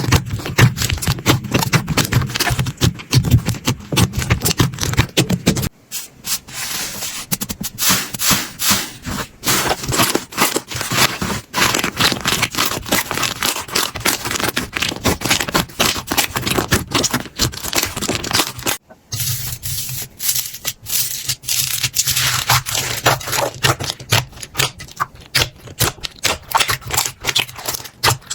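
Hands squishing and pressing slime, a dense run of sticky clicks and crackles. The sound changes abruptly about six seconds in and again about nineteen seconds in, as one slime clip gives way to the next.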